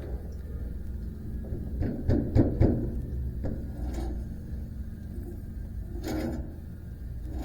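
Knocks and rattles of metal parts as a band sawmill's band wheel and its adjusting hardware are worked by hand. There is a quick cluster about two seconds in, a couple of single clicks, and a louder rattle about six seconds in, over a low steady hum.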